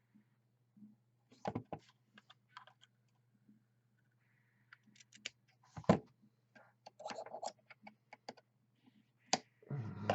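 Scattered small clicks and taps of hands working close to the microphone on a rebuildable tank atomizer while wicking it, with a sharper knock about six seconds in and a cluster of handling noise near the end, over a faint steady hum.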